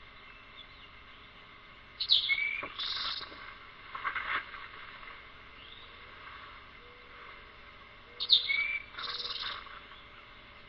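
A songbird singing the same short phrase twice, about six seconds apart: each time a sharp falling note, then a buzzy note.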